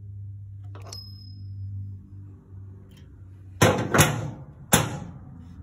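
A low steady hum, a light click with a brief high ring about a second in, then three loud sharp knocks in quick succession near the end as the camera is moved.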